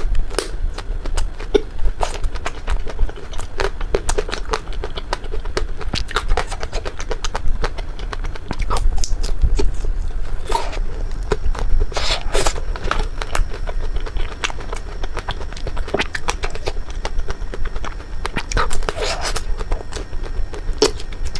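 Close-miked biting and chewing of crisp-coated ice cream bars: a steady run of sharp crackles as the frozen shell breaks between the teeth, with a few longer wet mouth sounds in between.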